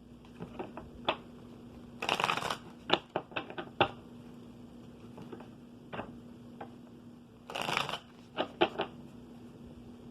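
Tarot cards being shuffled and handled. There are two short shuffling bursts, about two seconds in and again near eight seconds, with scattered sharp clicks and taps of cards in between.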